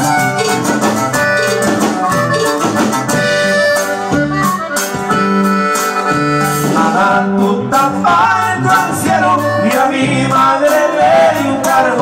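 Instrumental Latin band music led by accordion, with a bass line and a steady percussion beat. In the second half the lead melody becomes more ornamented and wavering.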